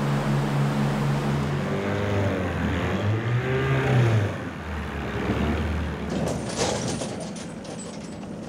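Seine skiff's motor running hard under load, its pitch rising and then dropping as it turns towing the net, with water rushing past. A series of sharp clatters comes in near the end.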